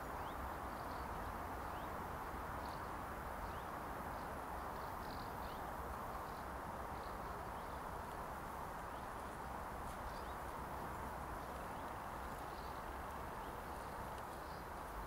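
Steady outdoor background hiss with faint, scattered high chirps of small birds.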